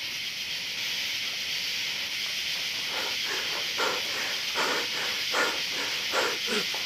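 A steady hiss, joined about three seconds in by a string of soft rustling sounds and, near the end, a short low grunt.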